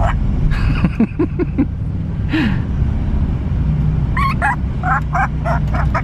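African grey parrot vocalizing inside a moving car: a few low sliding notes about a second in, a falling call a little later, then a quick string of about six short calls around four seconds in, over the steady low rumble of the car on the road.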